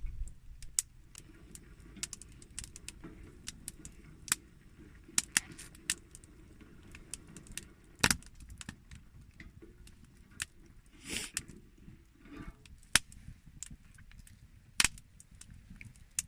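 Wood campfire crackling: irregular sharp pops and snaps over a low steady rumble, with a few louder cracks in the second half.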